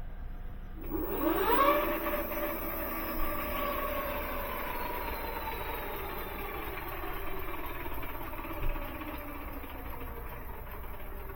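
E-bike hub motor with a failed planetary gear bearing spinning the wheel up with a rising whine, then coasting with its pitch slowly falling, grinding as it goes. Two short knocks are heard during the coast-down.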